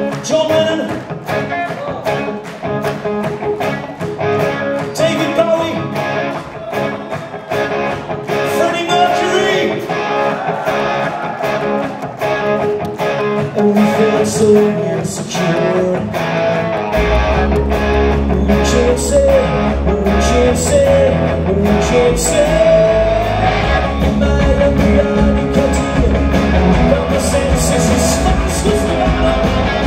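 Rock band playing live: drums keeping a steady beat under electric guitars, with a male singer. A deep bass comes in a little past halfway, filling out the low end.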